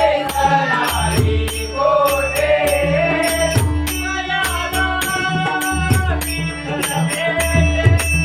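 Marathi abhang bhajan sung by a lead singer, with pakhavaj drum strokes underneath and a steady clicking beat of about two to three strikes a second keeping time. The voice glides through the melody over the first few seconds, then the music settles into steadier held notes.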